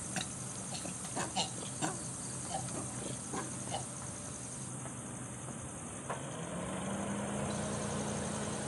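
Steady chorus of insects, a shrill pulsing buzz, with a few short chirps in the first four seconds. From about six seconds in, the low hum of a vehicle engine comes in and slowly grows louder.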